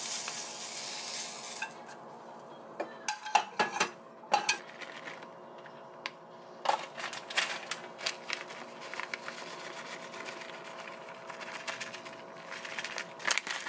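Cooked chicken breast cubes scraped off a wooden spatula onto an egg pizza in a ceramic dish, then scattered clicks and taps as the pieces land and are arranged and shredded cheese is sprinkled on by hand. A steady faint hum runs underneath.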